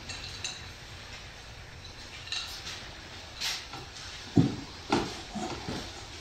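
Metal stove parts being handled and wrapped for packing on a workbench: a short rustle, then a couple of light knocks and clinks of metal.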